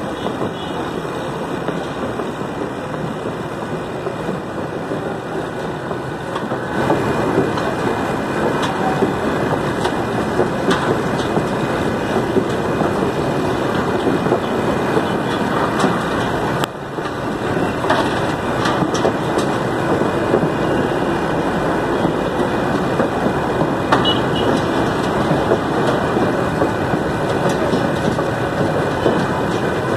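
Steady loud din of heavy road traffic and building demolition work, with scattered knocks and clatter through it. It gets louder about seven seconds in.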